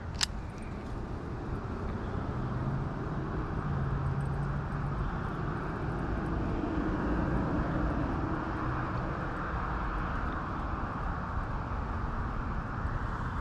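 A steady distant engine drone that swells through the middle and eases off again, with a single sharp click just after the start.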